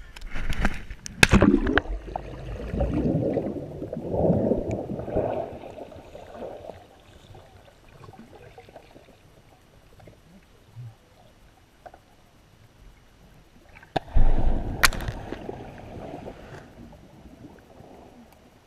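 A GoPro camera plunging into the sea and recording underwater: a splash about a second in, then muffled sloshing and gurgling for a few seconds. After a quieter stretch, a second sudden burst of muffled water churning with a sharp knock comes near the end and slowly fades.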